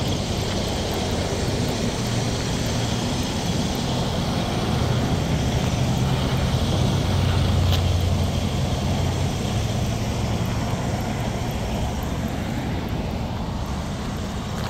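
Semi truck's diesel engine idling close by, a steady low hum that grows louder around the middle and eases off toward the end, over roadway traffic noise.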